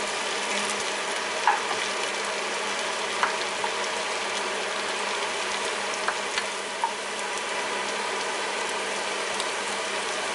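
Sliced mushrooms and garlic sizzling steadily in a nonstick frying pan, with a few short clicks and scrapes of a spatula stirring them.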